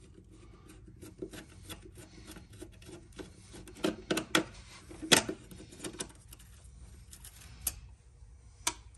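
Screwdriver working the screws out of a metal trim strip: small metal scrapes and clicks, with a cluster of sharper clicks about four to five seconds in.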